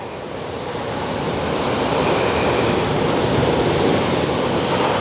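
Ocean surf washing in, a wave's rush swelling over the first couple of seconds and then holding steady.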